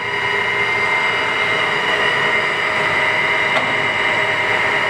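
Kingston HD 26x60 engine lathe running under power with the feed engaged: a steady multi-pitched whine from the headstock gearing and drive, with one faint click about three and a half seconds in.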